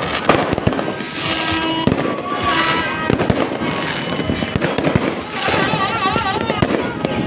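Fireworks going off in quick succession: a dense, irregular run of bangs and crackles.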